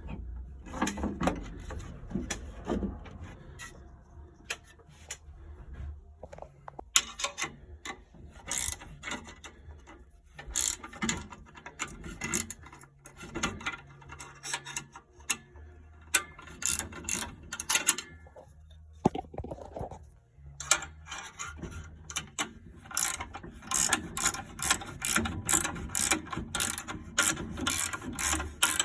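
Ratcheting hand tool clicking in bursts, with short pauses between strokes and a faster, even run of clicks near the end.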